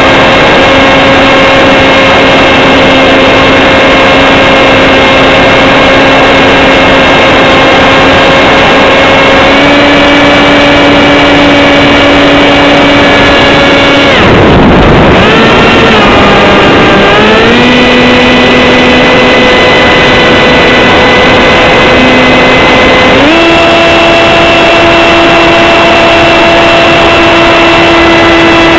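Electric motor and propeller of a Z84 flying wing whining steadily in flight, recorded onboard with loud wind rush. The pitch steps up about a third of the way in, drops away briefly around the middle as the throttle comes off, glides back up, and steps up again near the end.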